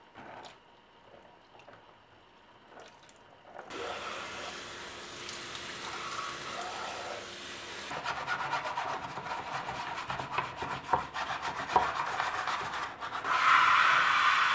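A few light clicks, then steady scrubbing of a surface, with quick back-and-forth strokes partway through. Near the end a kitchen tap starts running with a steady hiss.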